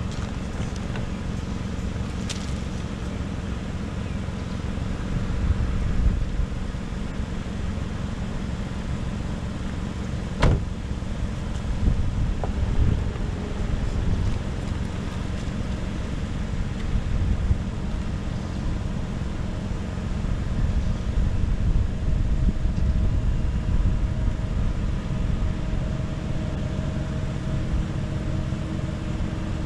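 Steady low rumble of passing road traffic, with a single sharp knock about ten seconds in.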